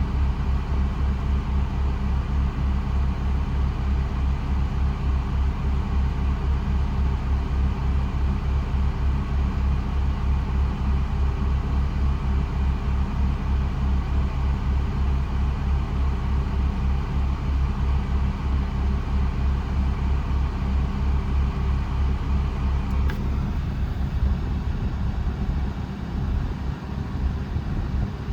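Mercedes SLK32 AMG running with its air conditioning on, heard inside the cabin as a steady low rumble from the engine and the air blowing from the vents; it eases a little near the end.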